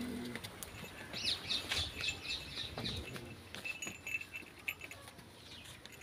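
Small birds chirping: a quick run of high, rising-and-falling chirps starts about a second in and lasts a couple of seconds, with scattered faint clicks and knocks around it.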